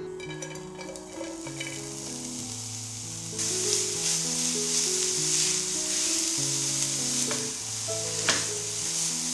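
Food frying in hot oil in a pan: a loud sizzle starts about a third of the way in and carries on, with a sharp click near the end.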